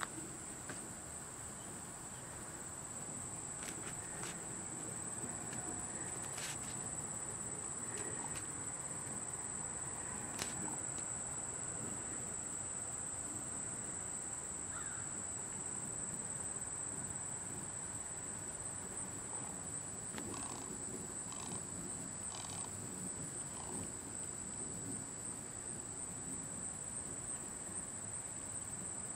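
Steady high-pitched drone of insects calling in summer vegetation, unbroken throughout. A few short sharp sounds stand out over it now and then.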